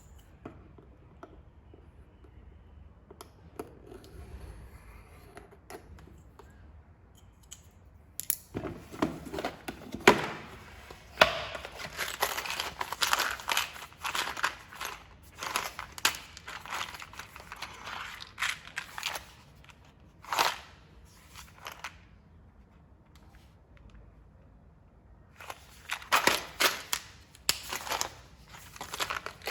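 Plastic packaging and a tool case being handled during an unboxing: runs of sharp clicks, clacks and crinkling rustles with pauses between them. There is no drill motor running.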